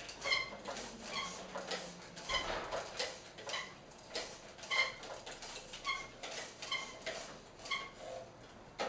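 Myon humanoid robot walking backwards: a steady run of short pitched whines and clicks from its leg joints and feet, about two a second, one per step, ending with a sharper click near the end as the walking stops.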